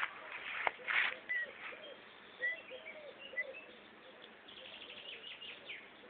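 Birds calling: short high chirps scattered through, over a run of low, arched cooing notes, with a sharp click about two-thirds of a second in.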